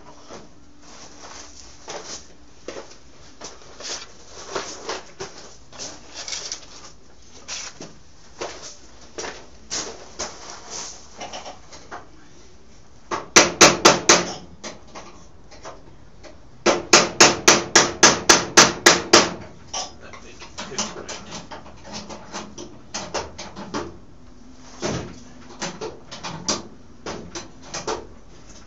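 Hammer blows on steel, ringing: a quick run of about five strikes about halfway through, then a longer run of about eleven strikes at roughly five a second. Lighter clicks and knocks come before and after.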